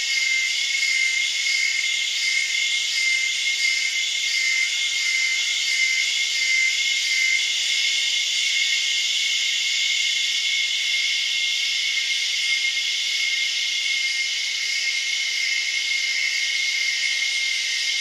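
Cicada chorus: a dense, high-pitched buzzing over a steady high tone, pulsing rhythmically at first and settling into a more continuous drone partway through.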